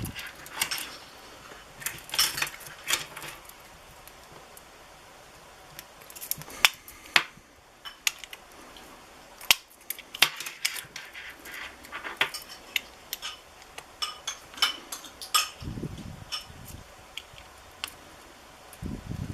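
Metal back cover of a wristwatch clicking and scraping against the case as it is pressed and turned by hand to seat it: irregular sharp clicks and taps, with two dull thumps near the end.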